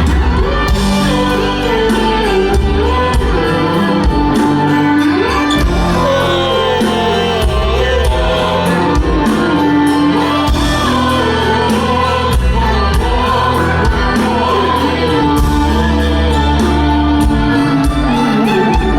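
Live rock band playing loud, with a man singing in an operatic voice, his pitch wavering in vibrato over the band.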